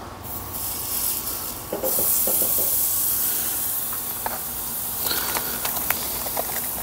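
Meat sizzling on a hot charcoal grill: a steady hiss that swells about two seconds in, with a few light clicks as the tri-tips are handled.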